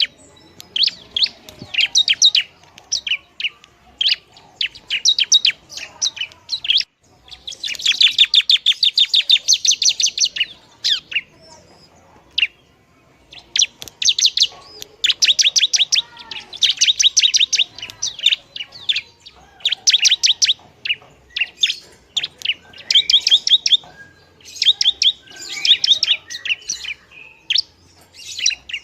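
Ciblek (bar-winged prinia) singing vigorously: rapid, chattering trains of high, sharp notes in bursts of one to three seconds, with a pause of about two seconds near the middle.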